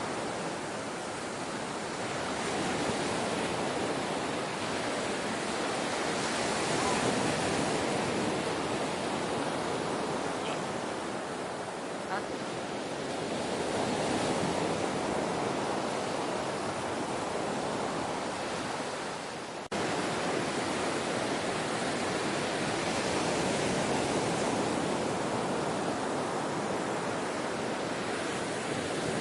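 Ocean waves washing on a shore, a steady hiss of surf that swells and eases every several seconds. About two-thirds of the way in the wash drops out briefly with a faint click.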